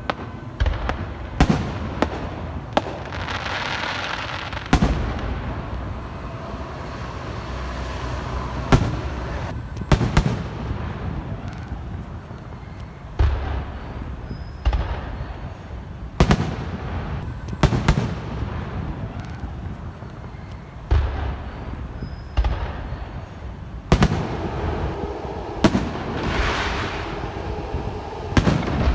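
Aerial fireworks display: shells bursting in quick succession with sharp bangs every second or two, and a crackling hiss from crackle effects swelling a few seconds in and again near the end.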